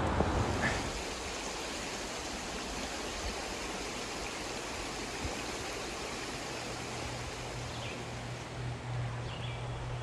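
Shallow creek water running over rocks: a steady rushing sound.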